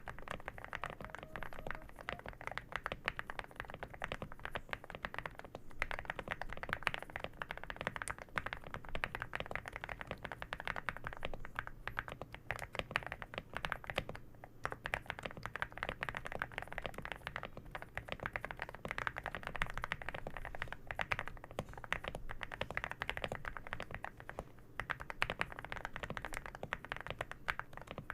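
Leobog Hi75C custom mechanical keyboard with hand-lubed MZ Y2 linear switches being typed on fast and continuously, giving a thocky stream of keystrokes with a few short pauses.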